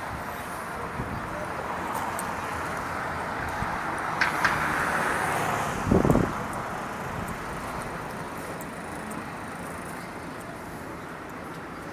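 Town street ambience: a steady hum of traffic and street noise, with a brief, loud low rumble about six seconds in.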